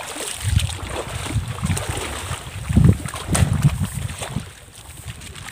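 Shallow water sloshing and splashing in uneven surges as hands grope under submerged rocks for stone crabs, over a low wind rumble. It is loudest about three seconds in and dies down near the end.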